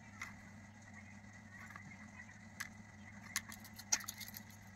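Faint room tone: a steady low hum with a few light, sharp clicks and taps, most of them near the end.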